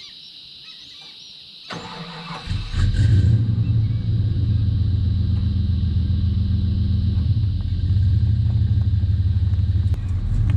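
Predator 420cc 13 hp single-cylinder four-stroke engine of a longtail mud motor starting about two seconds in, catching within a second and settling into a steady run.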